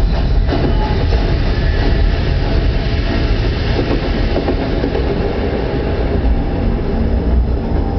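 Train sound effect from a Dolby Digital cinema trailer: the loud, dense rumble of a train rushing through a tunnel, heavy in the bass. It plays over a cinema sound system and is recorded from the auditorium.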